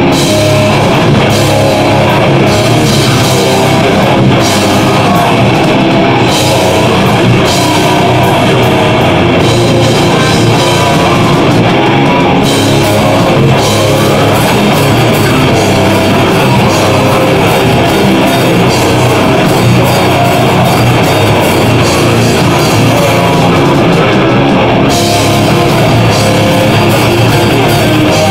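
Live heavy metal band playing: distorted electric guitars, bass guitar and a drum kit in a dense, loud, unbroken wall of sound, in an extreme progressive metal style.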